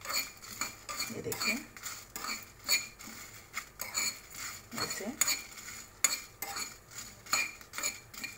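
Metal spoon stirring and scraping whole spices and dried red chillies around a small kadhai as they are dry-roasted without oil. The spoon clinks against the pan irregularly, about one or two strokes a second, each with a short metallic ring.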